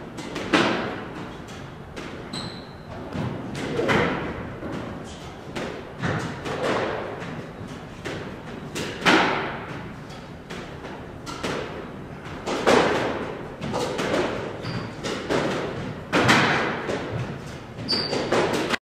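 A squash rally: rackets striking a squash ball and the ball smacking off the walls and floor of a squash court, each hit echoing briefly, the loudest every few seconds. The sound cuts off suddenly near the end.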